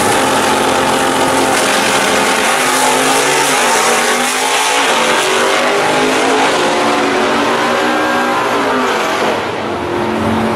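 Two drag cars, a 1968 Pontiac GTO and an early Corvette, launching side by side and making a full-throttle pass. The engine note climbs in pitch and drops back at each gear change, and it eases off a little near the end.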